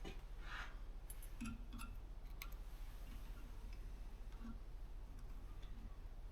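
Faint scattered clicks and light taps of small parts being handled as a new air-compressor pressure switch is fitted and wired, over a low steady hum.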